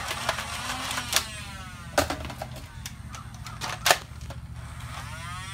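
Nerf Rapidstrike's electric flywheel motors whirring, with the pusher clacking as darts fire in short bursts. There are several sharp, loud clacks, and a rising whine near the end as the flywheels spin back up.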